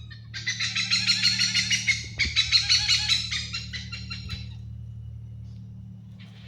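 Bird calls: a loud, fast chattering run of rapid high notes lasting about four seconds, then fading, over a steady low hum.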